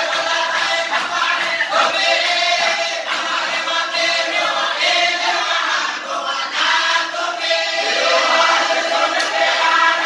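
A group of men singing a chant together, loud and continuous.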